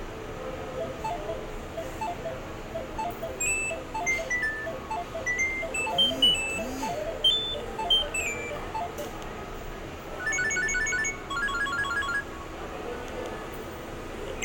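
Nokia 3200 mobile phone playing polyphonic ringtone melodies through its small loudspeaker, a run of short beeping notes, switching to a different, faster-repeating tune about ten seconds in.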